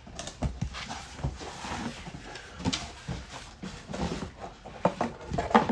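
A wet/dry vac's box and packaging being opened and handled: irregular knocks, clunks and rustling.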